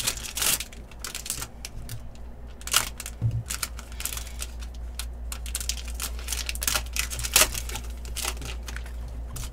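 Sports card packs and cards being handled: irregular crinkling and tearing of foil pack wrappers and sharp clicks of cards being flipped through, over a steady low hum.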